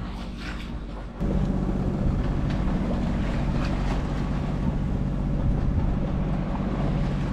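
Water rushing along a sailing yacht's hull, then, about a second in, an abrupt switch to the steady drone of the yacht's engine running under the wash of water and wind.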